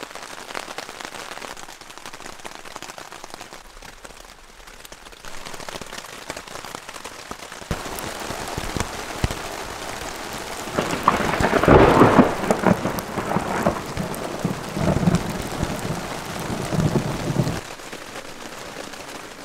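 Rain pattering on a tent fly, heard from inside the tent. It grows heavier about halfway through, with two louder spells lasting a few seconds each, then drops back to a lighter patter near the end.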